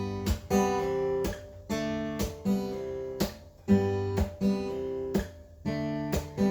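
Acoustic guitar strumming chords in a steady pattern, the instrumental intro of a sung cover.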